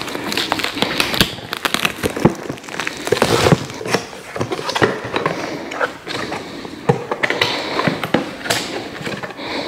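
A cardboard box being opened and its contents unpacked by hand: irregular rustling and scraping with many sharp clicks and knocks.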